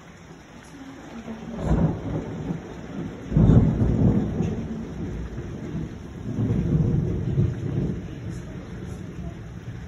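Thunder rolling in three rumbling peals, the loudest about three and a half seconds in, over steady rain.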